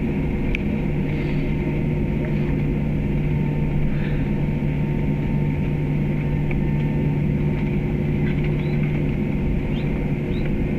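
Airliner cabin noise while taxiing after landing: the jet engines and cabin air make a steady drone, with an even low hum. A few faint small clicks sound through it.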